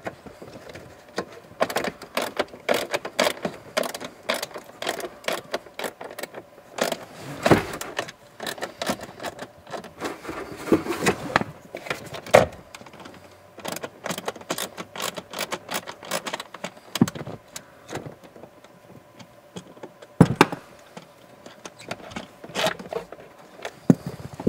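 Heater blower motor and its plastic fan cage being worked down out of the plastic blower housing under the dash: irregular plastic clicks, knocks, rattles and scrapes, with a few louder knocks.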